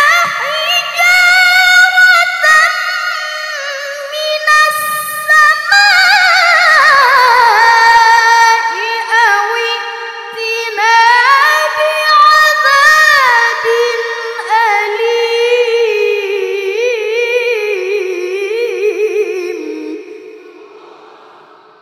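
A boy reciting the Quran in melodic tilawah style, holding one long melismatic phrase with rapid vocal ornaments. The pitch starts high, slides down about six seconds in and settles lower, and the voice fades out near the end.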